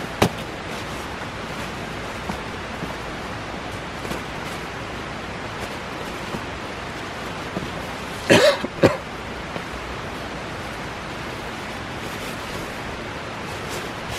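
Steady outdoor hiss with faint rustling as a synthetic sleeping bag is handled, a sharp click just after the start, and a short double burst like a cough about eight seconds in.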